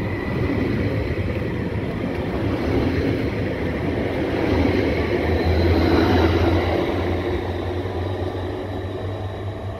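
Stadler FLIRT (Sm5) electric commuter train running along a station platform: a steady rumble of wheels and motors that swells to its loudest about six seconds in, then eases off.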